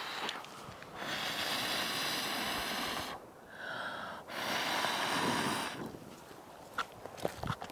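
A person blowing hard on glowing coals to rekindle a campfire: two long, noisy blows of about two seconds each, with a softer breath between them. A few small clicks come near the end.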